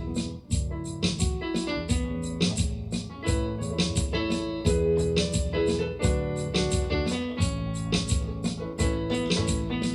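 Electronic keyboard playing music: piano-like notes over a bass line, with a steady rhythm-section beat.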